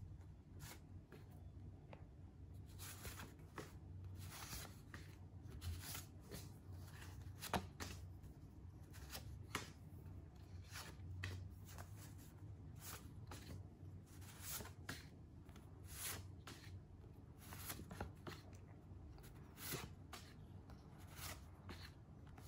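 Stack of printed photo cards being leafed through by hand: faint, repeated slides and flicks of paper on paper, about one a second, as each card is moved to the back of the pile.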